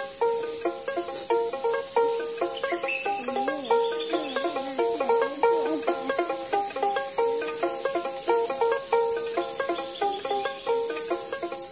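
Field recording of African pygmy music: a plucked instrument repeating a quick, rhythmic pattern of short notes, over a steady high chorus of insects.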